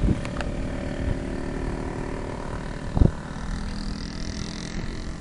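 Aircraft flying overhead, a steady droning hum. Wind buffets the microphone twice, once at the start and once about three seconds in.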